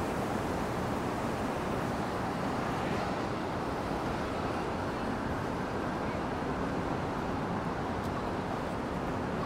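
Steady roar of city traffic, with wind on the microphone.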